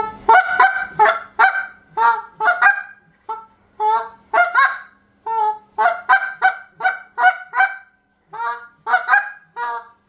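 Handheld reed goose call blown in a fast, high-pitched calling sequence: a quick string of clucks and double clucks mixed with short moans, about two notes a second, with a brief pause near the end.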